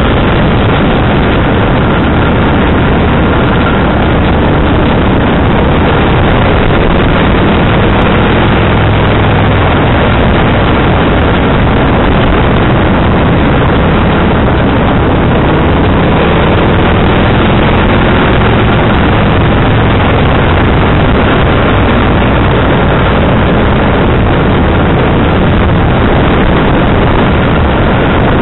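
Kawasaki VN1500 V-twin motorcycle being ridden at road speed, its engine running steadily under a loud, even rush of wind and road noise.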